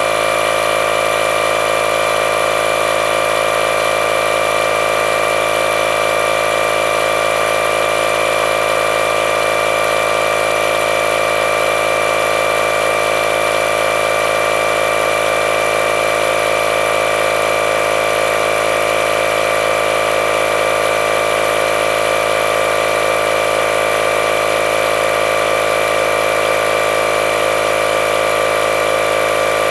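Milwaukee M12 cordless compact inflator running steadily with a constant mechanical drone, its compressor pumping air into a tire that is still well below the 12 PSI set point.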